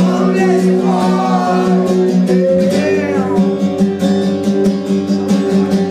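Live band music led by guitar: held chords under a steady beat, with a melodic line sliding up and down over them.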